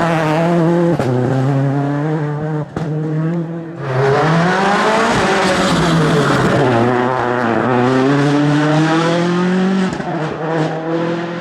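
Rally car engine at high revs, its pitch climbing and dropping with throttle and gear changes. It lifts off briefly about three seconds in, with a couple of sharp pops, then pulls hard again.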